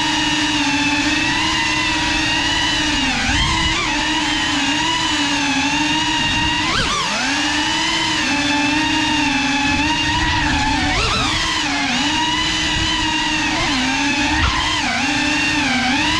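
CineLog35 cinewhoop FPV drone's motors and ducted propellers whining steadily. The pitch dips and climbs back briefly several times as the throttle changes.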